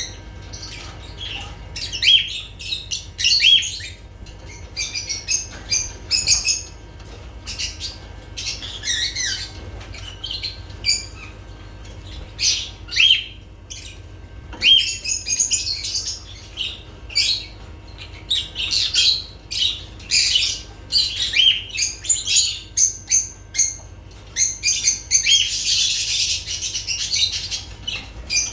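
Lovebirds chirping and squeaking, many short high calls in quick irregular runs, some sliding downward, with several birds overlapping in a denser burst near the end.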